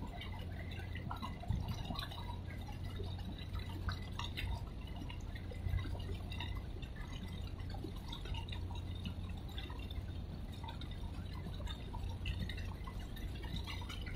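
Harbour water lapping against the quay wall in small, irregular splashes and drips, over a steady low hum.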